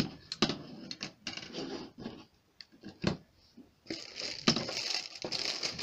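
Hard plastic toy pieces clicking and knocking as they are handled, then plastic parts bags rustling and crinkling from about four seconds in.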